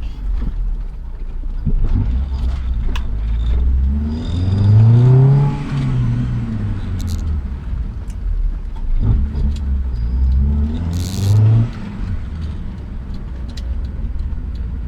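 Honda B20 VTEC four-cylinder engine accelerating hard. Its note climbs about four seconds in and then falls away, and climbs again about nine seconds in before dropping off sharply.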